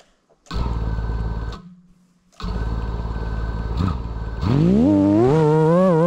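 Small FPV quadcopter's motors buzzing at idle, twice, then spinning up with a rising whine about four seconds in. The whine wavers in pitch as the throttle changes for takeoff.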